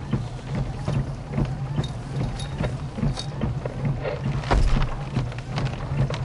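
Thunderstorm wind buffeting the microphone, with scattered sharp hits of falling precipitation and a steady low rumble underneath; a strong gust about four and a half seconds in.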